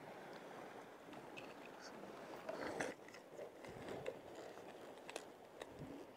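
Steady hiss of sea and wind on a rocky shore, with scattered small clicks and rustles as a fishing rod and spinning reel are handled.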